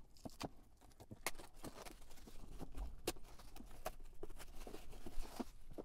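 Plastic shrink wrap being torn and peeled off a cardboard box, crinkling in scattered, irregular crackles.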